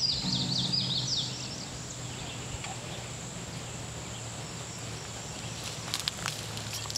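Outdoor ambience after the song has ended. A bird gives a quick run of short, falling chirps in the first second or so, then comes a steady, even background with a low hum and a few sharp clicks near the end.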